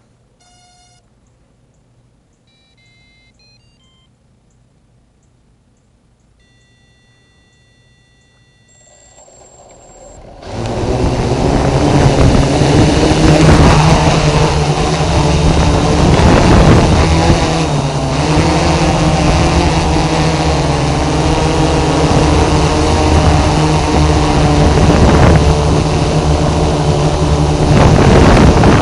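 A few short series of electronic beeps and musical tones, then the F550 hexacopter's electric motors and propellers spin up suddenly about ten seconds in and run loud and steady with a dense buzzing hum.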